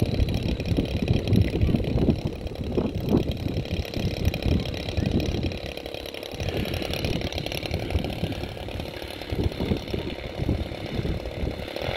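Large R/C model triplane's engine idling on the ground, with wind buffeting the microphone in irregular gusts.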